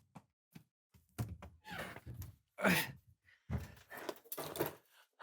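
A man's faint, frustrated sighs and grunts: a string of short breathy vocal sounds.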